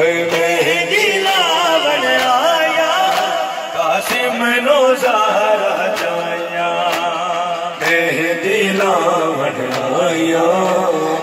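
A noha (Shia lament) chanted by a male reciter through a microphone and loudspeaker, with the crowd of mourners chanting along. Sharp beats come about once a second, the mourners' chest-beating (matam) in time with the lament.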